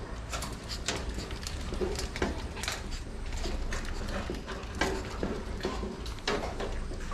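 Metal wire dog cages being handled: scattered clinks, knocks and rattles of the wire frames and doors, a handful of sharper hits among them.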